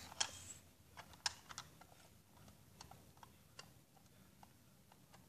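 Faint, irregular clicks and taps of hard plastic as a toy vehicle is handled and a small gun accessory is pushed into place on it, a few slightly louder clicks in the first second and a half.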